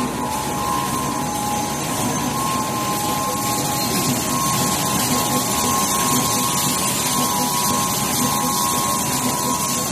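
Automatic multi-colour cosmetic tube screen printing machine running: a steady mechanical whir and hiss with a constant high whine.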